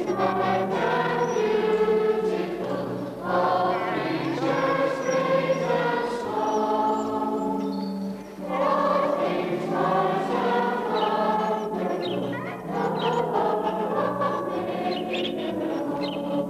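A church congregation singing a hymn together, in sung lines with short breaks between them.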